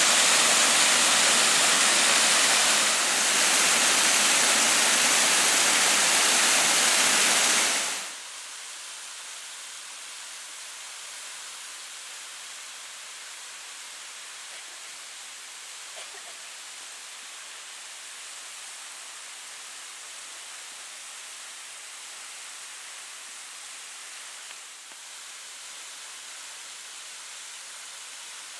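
Waterfall rushing loudly, then cutting off abruptly about eight seconds in to a much fainter, steady hiss.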